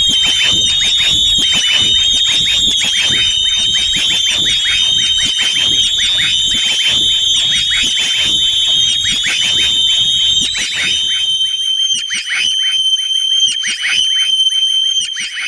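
Dolphin-like sound effect: one high, slightly wavering whistle held throughout, over a fast run of short downward chirps, many to the second. About 11 s in, the chirps thin out and the lower sound drops away, leaving the whistle with sparser chirps.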